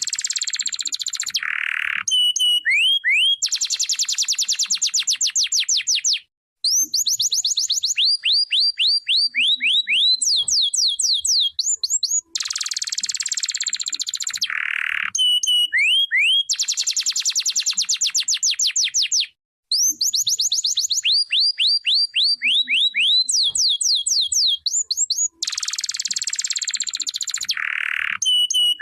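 Domestic canary singing a long continuous song of rapid trills and fast runs of rising whistled notes. The same sequence of phrases comes round again about every thirteen seconds.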